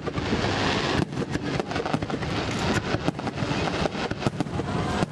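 Aerial firework shells bursting in quick succession: a dense run of sharp bangs and crackles over a steady low rumble.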